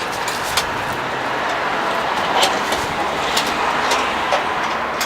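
Steady road traffic noise, with about half a dozen short, sharp clicks and knocks scattered through it from the flood barrier's pressure clamps being handled and tightened.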